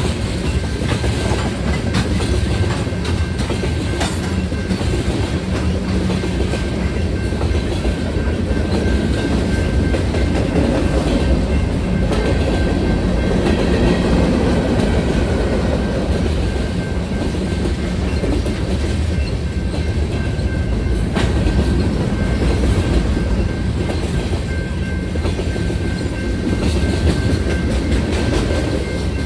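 Union Pacific freight cars rolling past at a grade crossing: a steady rumble of steel wheels on rail with a few sharp knocks as wheels cross joints.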